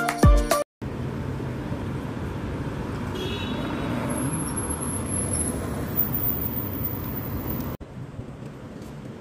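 Background music with a pulsing beat cuts off under a second in, followed by steady city street traffic noise as cars drive past.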